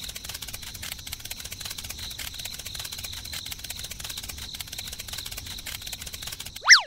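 Crickets chirring steadily in a dense, rapid trill. Near the end, a quick gliding tone drops sharply in pitch and is the loudest sound.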